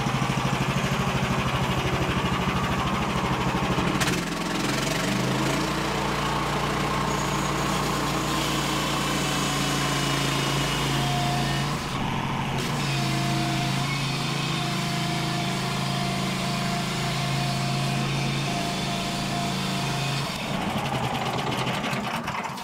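Portable bandsaw sawmill's engine running, throttled up about four seconds in and held steady at speed while the band blade cuts through a log, then easing back down near the end.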